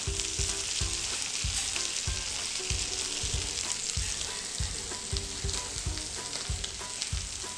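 Egg-coated chicken pieces frying in melted butter in a pan, with a steady sizzle. A slotted spoon stirs through them briefly at the start.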